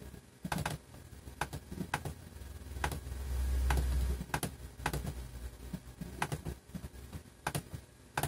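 Irregular clicks of a computer mouse, a dozen or so, while settings dialogs are clicked through, with a low rumble about three to four seconds in.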